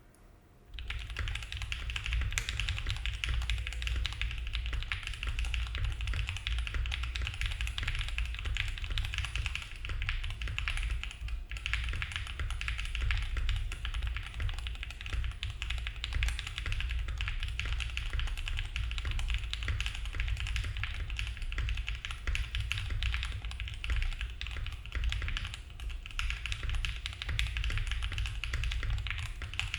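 Mode Envoy mechanical keyboard being typed on fast and continuously. Its lubed Gateron Cream Soda switches, FR4 plate and GMK keycaps give a stream of deep "thock" keystrokes. The typing starts about a second in and eases briefly around the middle.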